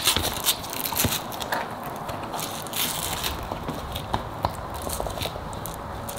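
Rustling and crinkling of the Bronco soft top's fabric as it is pulled and worked by hand, with scattered small clicks; the rustle is loudest at the start.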